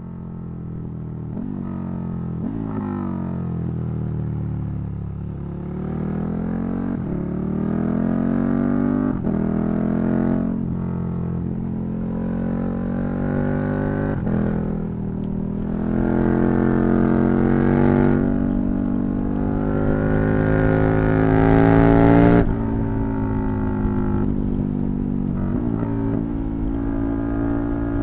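KTM 1290 Super Duke R's V-twin engine under way, its note rising in repeated sweeps that break off and fall back, as with throttle and gear changes. About 22 seconds in the level drops suddenly as the throttle closes.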